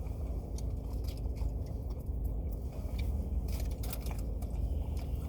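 Close-up chewing of crunchy fried food, with small wet clicks and crunches, over a steady low hum that sounds like a car cabin.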